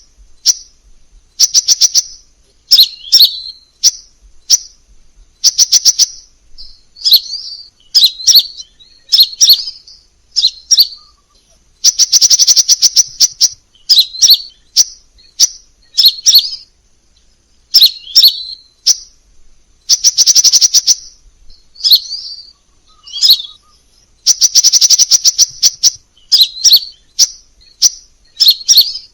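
Crimson sunbird song: high, rapid ticking trills and short chirps repeated every second or so, broken by a few longer, denser trills.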